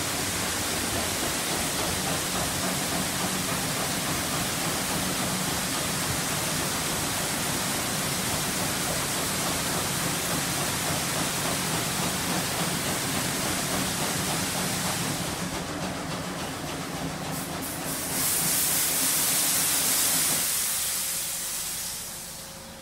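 Water jets of an automatic car wash tunnel spraying steadily, with a low hum from the wash equipment underneath. Near the end a louder, higher hiss swells for about two seconds, then the sound drops away.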